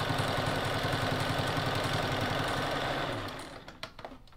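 Vintage Kenmore 158.1601 sewing machine running steadily, its needle zigzag-stitching through ten layers of denim, then stopping a bit past three seconds in. A few light clicks follow.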